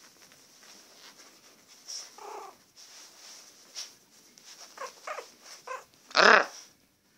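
Young Yorkshire terrier puppy whimpering: a short whine about two seconds in, a few brief squeaks, then a loud yelp near the end, over faint rustling of bedding.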